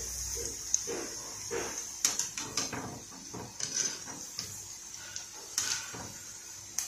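Murukku deep-frying in hot oil in a kadai, with a steady sizzle, while a wire-mesh spider skimmer knocks and scrapes against the pan about a dozen times as it turns them. The lively sizzle shows the murukku are not yet done; they are lifted out once it dies down.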